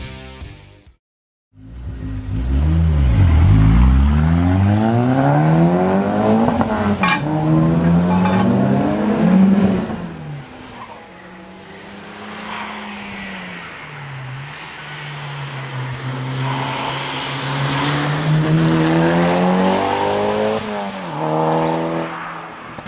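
A hillclimb race car's engine revving hard and changing up through the gears, its pitch climbing again and again. It then drops to a lower, steadier note, and after that climbs in revs once more.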